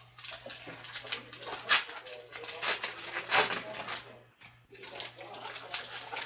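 Trading-card pack wrappers being torn open and crinkled by hand, with cards shuffled and handled: a dense run of irregular crackles and rustles.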